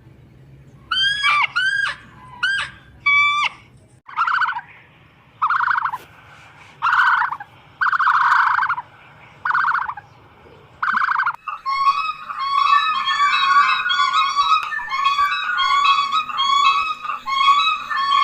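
Birds calling. First come a few short pitched calls, then loud, rough calls about once every second and a half, and from around the middle many birds call over one another in a dense flock chorus.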